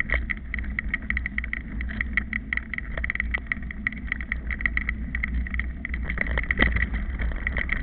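Mountain bike ridden fast over a bumpy dirt trail: a rapid, irregular clatter of knocks and rattles over a steady low rumble.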